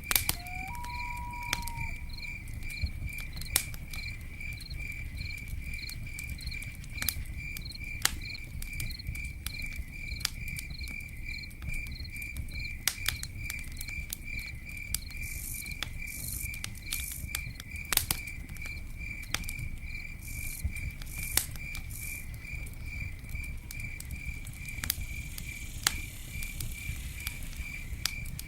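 Campfire crackling: scattered sharp pops and snaps over a low rumble of burning wood. A cricket chirps steadily, about two chirps a second, and a short whistling note sounds near the start.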